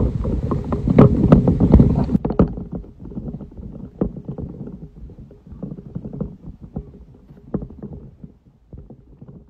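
Low rumble with scattered knocks and crackles on a handheld phone's microphone, loudest in the first two seconds: wind buffeting and handling noise.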